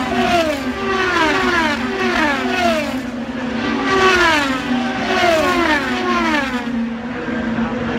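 IndyCars' twin-turbo V6 engines screaming past one after another in a close pack, each car's note dropping in pitch as it goes by.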